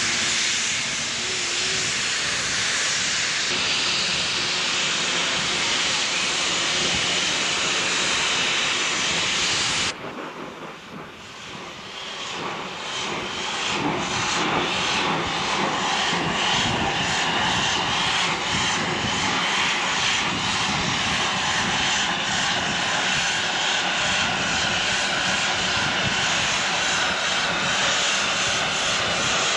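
Steam locomotive No. 90, a small tank engine, hissing loudly with escaping steam as it moves slowly forward. The sound drops away briefly about ten seconds in, then returns with a regular pulsing beat under the hiss.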